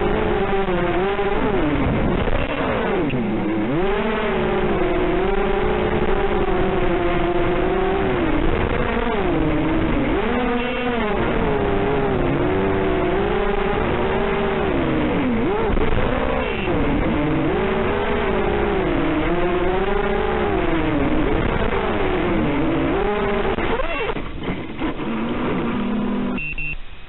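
Tarot TL280 FPV racing quadcopter's motors whining in flight, the pitch rising and falling constantly with the throttle. Near the end the whine falters and cuts out as the quad comes down in tall grass, leaving only hiss.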